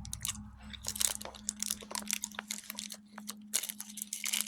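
Someone chewing a soft Colby Jack cheese stick: irregular small mouth clicks and smacks, over a steady low hum.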